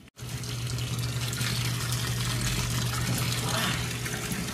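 Water running steadily, with a steady low hum underneath.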